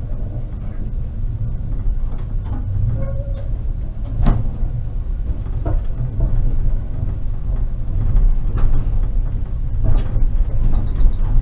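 Konstal 105Na tram running: a steady low rumble with sharp knocks and clacks, the loudest about four seconds in and again near the end. A short high beeping starts just before the end.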